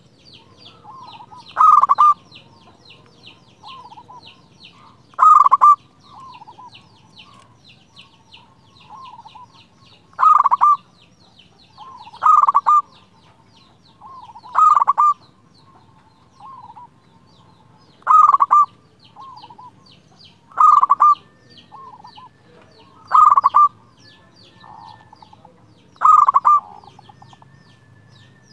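Zebra dove (perkutut) singing its cooing song: about nine loud, short coo phrases, repeated every two to four seconds, with softer coos in between. A steady, fast, high-pitched ticking runs underneath.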